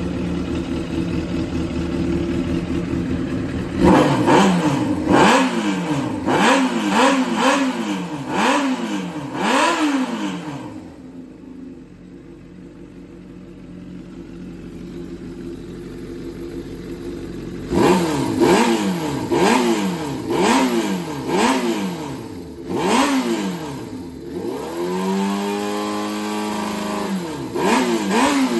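Suzuki GSX400 Impulse inline-four engine idling, then revved in quick throttle blips about once a second, with a quieter spell in the middle before a second series of blips and one smoother, longer rev. It runs with no abnormal noise.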